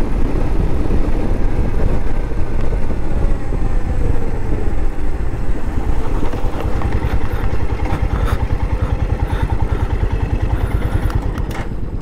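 Royal Enfield single-cylinder motorcycle engines running steadily at cruising speed, with the fast low thud of the firing pulses under wind rushing past the bike-mounted camera. A second Royal Enfield, a Bullet, rides alongside.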